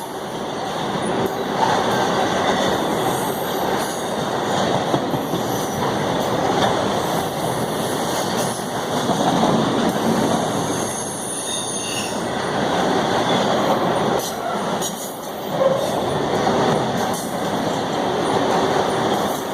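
CSX freight train's cars rolling past on the rails, a steady loud rumble and clatter with faint high wheel squeals.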